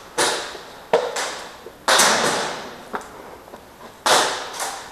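Airsoft shots fired singly and in short pairs at irregular intervals, each a sharp crack that echoes away.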